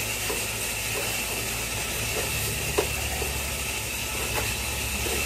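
Playback of a phone recording of a running shower: a steady hiss of spraying water with scattered faint clicks and a thin, steady high tone.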